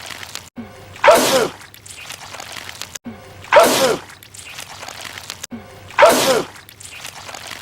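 A man's loud, goopy sneeze from a film soundtrack, the same sneeze repeated three times about two and a half seconds apart, each starting with a sudden blast.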